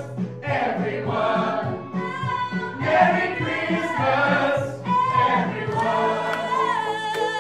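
A group of singers singing together in harmony, with a steady low pulsing beat underneath; near the end they hold a long note.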